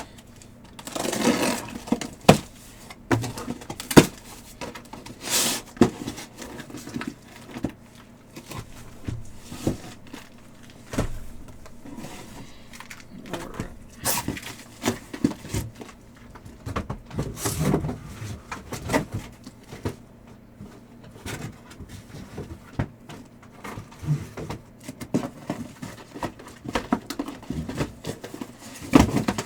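Cardboard hobby boxes and packaging being handled and opened: irregular knocks, scrapes and rustles of cardboard and plastic wrap.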